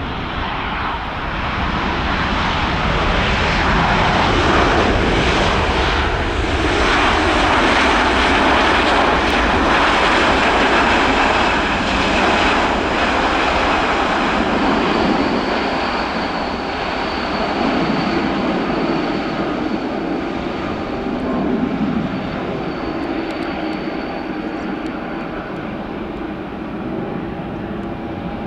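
Boeing 787-9 Dreamliner's GEnx-1B turbofan engines on the landing rollout just after touchdown. A broad jet roar builds over the first few seconds and peaks. It then eases into a steadier rumble with a thin high whine as the jet slows and rolls by.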